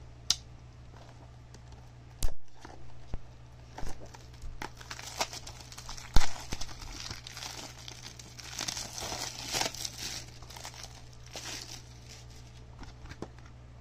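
Plastic shrink wrap on a Blu-ray case crinkling and tearing as it is slit with a pocketknife and peeled away, with a few sharp clicks and knocks from the case being handled, the loudest about six seconds in.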